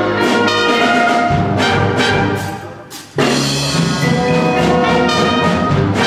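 Batterie-fanfare (brass and percussion band) playing a concert piece: loud sustained brass chords punctuated by percussion strikes. The sound fades away shortly before the middle and the full band comes back in with a sudden loud chord about three seconds in.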